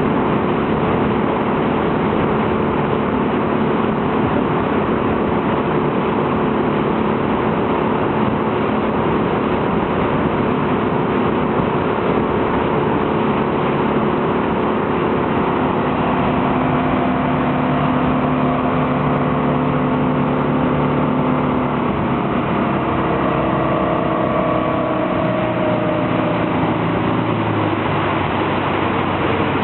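Motorboat engine running steadily under a rush of wind and water; its tone changes and drops in pitch in the second half.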